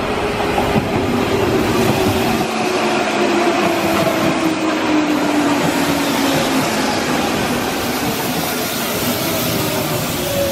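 Hanshin 5000-series 'Jet Car' electric train running past at close range: wheels rumbling on the rails under a motor whine that falls slowly in pitch as the train slows for the station stop.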